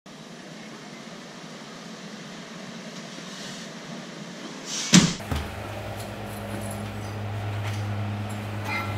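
Sliding glass door rolling along its track with a soft, building hiss, then a sharp knock about five seconds in as it stops against the frame. A steady low hum follows.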